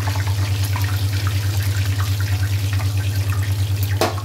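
Potato bread cheese rolls frying in hot oil in a pan, sizzling and crackling over a steady, rapidly pulsing low hum. A single sharp knock comes about four seconds in.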